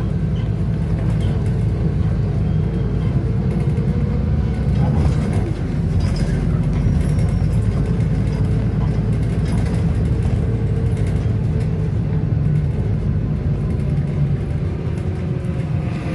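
City bus engine running with a steady low rumble, heard from inside the bus cabin.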